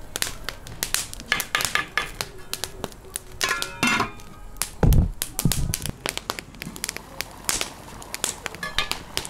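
Wood fire crackling and popping under a steel cooking pot, with metal clanks around four seconds in as the lid goes onto the pot and a dull thump just after.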